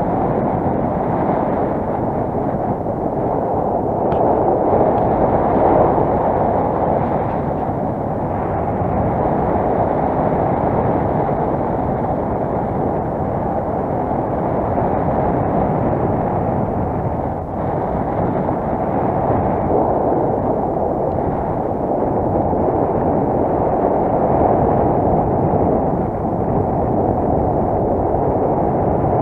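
Wind rushing over the camera microphone of a paraglider in flight: a loud, steady, deep rumble of wind noise.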